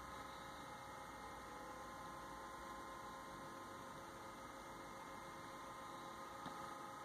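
Faint, steady electrical hum made of several high steady tones over a low background hiss, with one short faint click near the end.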